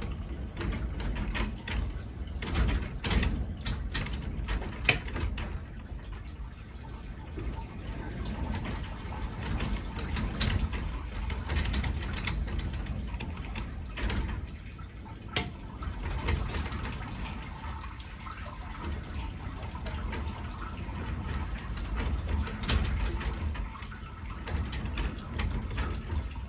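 Wort running and dripping out of a squeezed brew-in-a-bag grain bag into the stainless kettle below, with scattered clicks and rustles throughout.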